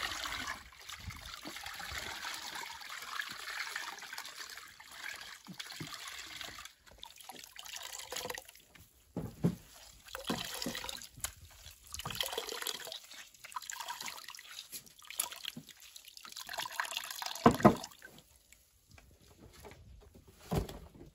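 Starchy cassava water trickling and splashing back into a pan as wet cassava pulp is wrung by hand in a cloth, pressing out the starch water for tapioca starch (polvilho). There is a louder thump near the end.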